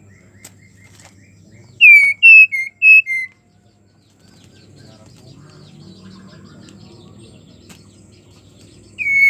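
Female white-rumped shama calling: a loud phrase of five short whistled notes, most slurring downward, about two seconds in, and the same phrase starting again just before the end. This is the call of a female in breeding condition calling to a male.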